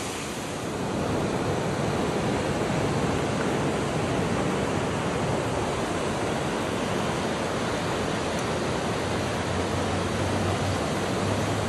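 Fast-flowing river rushing over shallow rapids: a steady, even wash of water.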